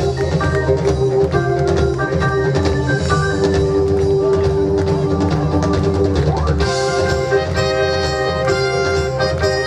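A live band playing an instrumental passage with drum kit, electric guitar, bass, keyboard and horns, the sound filling out with brighter, fuller chords about seven seconds in.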